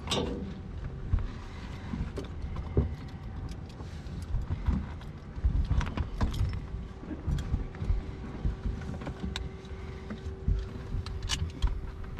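Handling noise of people getting into a light aircraft's cabin: scattered clicks, knocks and rustling from the seat, door and harness.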